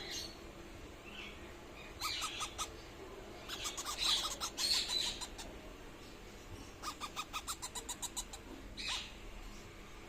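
Indian ringneck parrot chicks calling in runs of short, rapid chirps: a few about two seconds in, a denser run around four seconds, then a quick string of about ten near seven to eight seconds, and one last call near the end.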